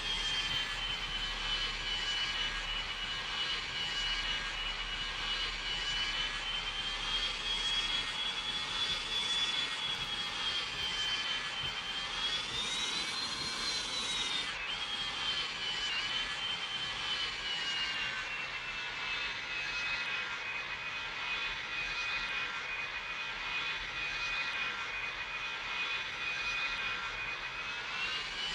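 McDonnell Douglas MD-90's rear-mounted turbofan engines running during approach and landing: a steady rush with a high fan whine that shifts as thrust changes. The whine climbs about halfway through, then drops away and settles lower.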